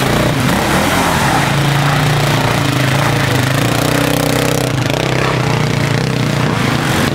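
Enduro motorcycle engine revving hard while the rear wheel spins in deep mud, held at high revs with the pitch wavering up and down.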